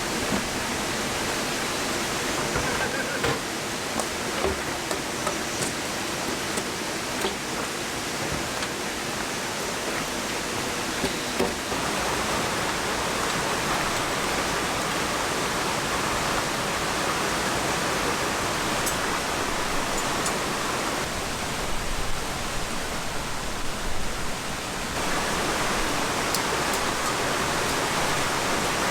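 Steady rush of flowing water, its tone shifting abruptly about 12 and 25 seconds in, with a few faint clicks over it.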